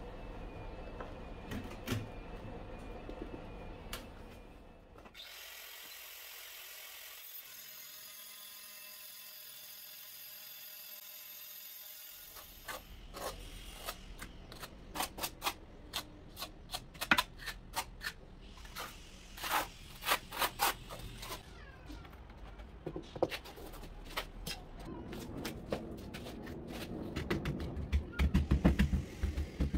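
Tile-setting work: a trowel scraping mortar onto masonry, then a long run of sharp knocks and taps, ending with a rubber mallet tapping a large porcelain tile to bed it into the mortar. A steady hiss lasts several seconds about five seconds in.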